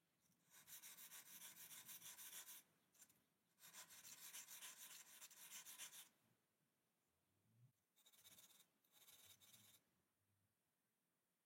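Faint scratching or rubbing in several bursts lasting one to two seconds each, with short quiet gaps between them.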